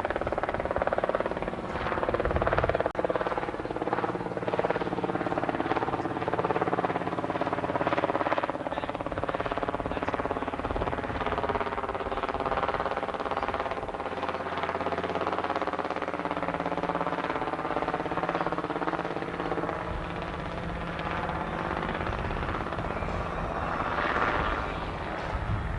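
Helicopter flying overhead and circling, its engine and rotor running steadily, with the pitch drifting up and down as it moves around.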